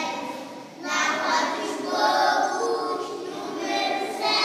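A group of young children singing together, with a brief break a little under a second in.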